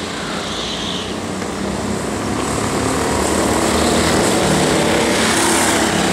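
Several go-kart engines running at speed as the karts pass on the track. The sound grows louder over the first few seconds as they come closer.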